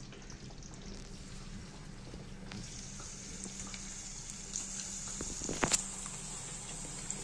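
Methi muthiya (fenugreek-leaf dough balls) dropped into hot oil in a steel pan, the oil sizzling with a steady high hiss that sets in about two and a half seconds in. A few light knocks of the dough and hand against the pan, the clearest just past the middle.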